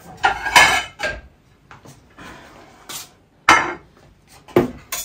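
Plates and serving utensils clattering and knocking while food is plated. There are sharp knocks near the start, about three and a half seconds in, and again about a second later, with lighter scraping between.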